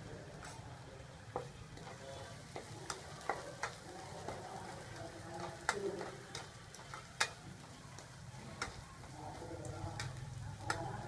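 Metal spatula stirring and scraping food in a wok, with sharp clinks against the pan at irregular intervals, over a steady sizzle of frying.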